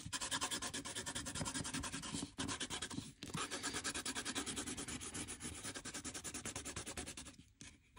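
Coloured pencil held on its side, rubbed back and forth over painted paper in rapid scratchy strokes to lay down texture, with brief breaks about two and three seconds in and a short pause near the end.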